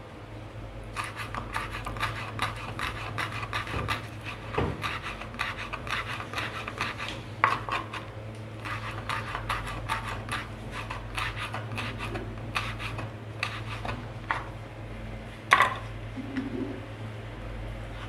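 Kitchen knife slicing a green chilli on a wooden cutting board: a rapid run of light taps of the blade on the board, with one louder knock about fifteen seconds in. A low steady hum sits underneath.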